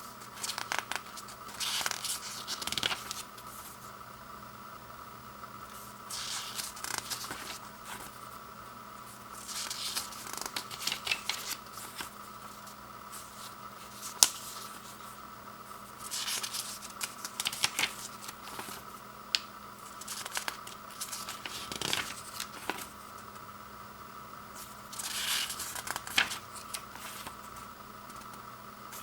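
Packaging being handled and opened: spells of crinkling, rustling and tearing every few seconds, with a single sharp click about fourteen seconds in, over a faint steady hum.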